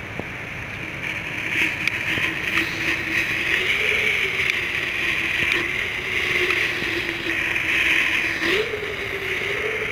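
Weco Feuerwirbel ground spinners burning inside a cardboard chips can: a steady, loud hiss with a wavering whistle-like tone that rises and falls, and scattered small crackles.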